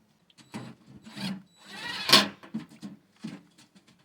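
A bird screen being worked onto the top of a stove pipe: a series of short scrapes, rubs and knocks, the loudest a longer scrape about two seconds in.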